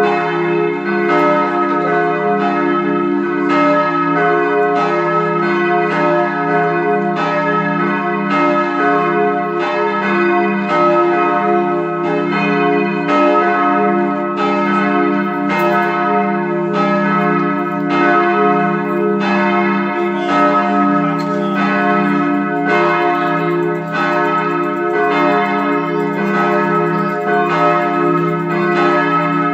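Cast-steel church bells from the Bochumer Verein (1921) swinging and ringing together, the d¹ and f¹ of a diminished-triad peal. Strikes overlap at about one a second over a sustained hum.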